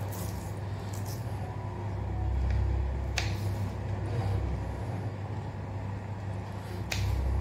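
Kitchen knife slicing green chillies on a plastic cutting board, with two sharp taps of the blade on the board, about three seconds in and near the end. A steady low rumble runs underneath.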